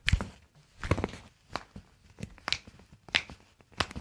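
A series of about six sharp clicks or knocks, spaced a little under a second apart.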